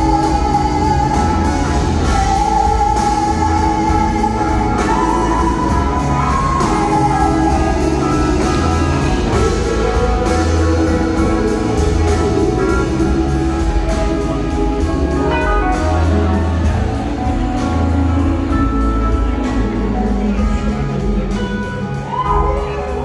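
A live blues-rock band playing, heard from a theatre's upper balcony: electric guitar, drum kit and organ, with a woman singing at the microphone. Long held melody notes with a few sliding pitch glides sit over a steady drum beat.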